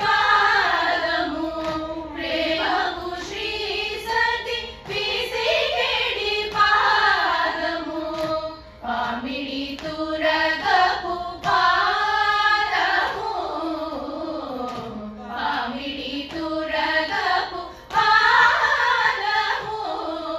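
Group of women singing a Carnatic song together in unison, unaccompanied by any heard instrument; the melody glides and bends in ornamented phrases with brief breaks between them.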